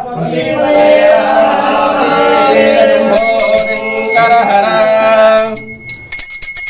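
Chanting in long held notes, joined about three seconds in by a puja hand bell rung rapidly for the aarti; the chanting stops near the end and the bell's ringing goes on.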